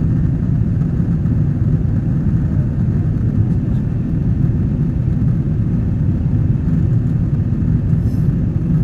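Steady low rumble of a jet airliner heard from inside the passenger cabin: engine and airflow noise holding an even level throughout.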